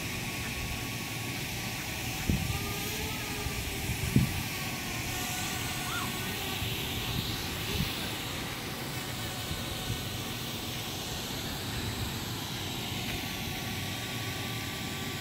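An aircraft flying overhead, a steady engine drone whose faint tones shift slightly in pitch as it passes. Two sharp knocks come about two and four seconds in.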